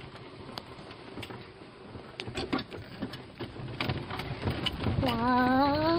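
Golf cart jolting along a rough woodland dirt trail: the body and fittings rattle and knock over the bumps, growing louder in the second half. About five seconds in, a long tone rises steadily in pitch.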